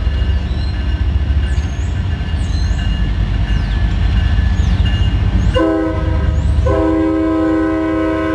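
CN 2239, a GE ES44AC freight locomotive, coming up to a grade crossing: its engine and wheels rumble low and heavy. Its multi-note chord horn gives a short blast about five and a half seconds in, then begins a long blast near the end, sounding for the crossing.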